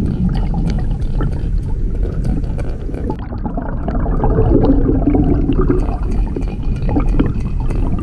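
MirrOlure C-Eyes topwater plug walked across the water surface, heard from underwater: a steady sloshing, gurgling wash of water with only faint, scattered ticks from the bait. The lure is judged too quiet.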